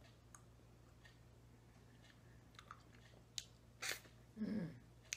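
Close-up mouth sounds of eating a spoonful of coconut-milk frozen dessert from a wooden spoon: scattered small lip and tongue clicks, a short loud smack of noise as the spoon goes into the mouth about four seconds in, then a brief low 'mm' hum falling in pitch.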